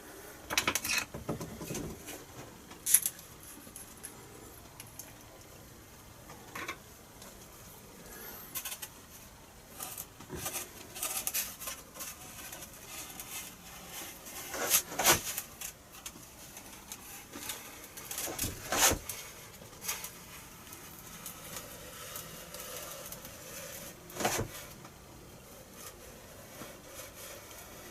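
Scattered handling noises: light clicks, taps and rubbing as a carbon fibre spar is fitted and glued into a slot cut in a foam wing, with sharper clicks about 15, 19 and 24 seconds in.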